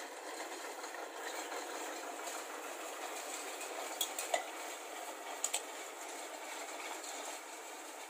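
Deutz 3006 tractor pulling a rotary hay tedder across mown grass, a steady mechanical rush with no low rumble. A few sharp metallic clinks from the tedder come about four and five and a half seconds in.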